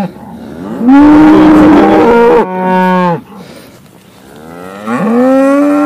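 Red Angus cattle bellowing: three long moos from more than one animal, the first loud and raspy about a second in, a lower one overlapping it until about three seconds, and a rising one near the end. The herd is calling as it is driven out of its paddock, standing and bellowing rather than moving on.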